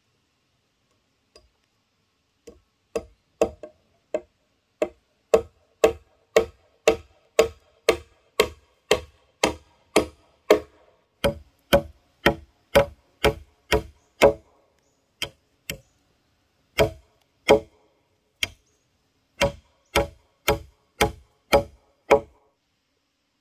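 Repeated tool strikes on bamboo, about two a second, each a sharp knock with a short hollow ring; the strikes pause briefly about two-thirds of the way through, then resume.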